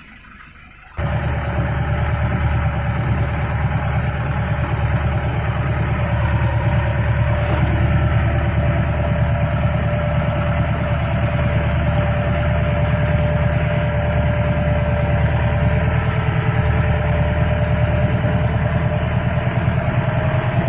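Mahindra jeep's engine running while driving, heard from inside the cab: a steady low drone with a steady whine over it. It cuts in suddenly about a second in.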